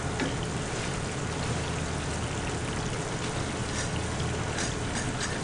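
Beef jangjorim bubbling and sizzling in its soy-and-sugar braising liquid in a frying pan as the sauce reduces: a steady hiss, with a few faint light clicks in the second half.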